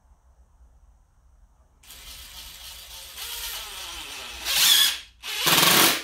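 Cordless drill driving a screw into the platform: the motor starts about two seconds in and its pitch sinks as it works, then two louder short bursts of drilling near the end.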